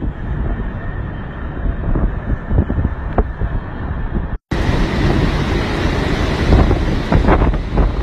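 Hurricane-force wind buffeting a phone's microphone: a loud, gusty low rumble with no let-up. It breaks off for a moment about four and a half seconds in and comes back with more hiss.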